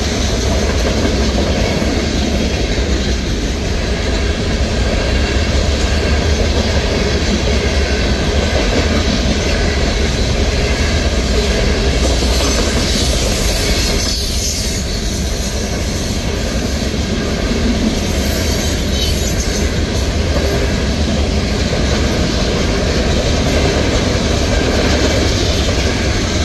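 Loaded freight train of hopper cars rolling past at steady speed: a continuous loud rumble of steel wheels on rail.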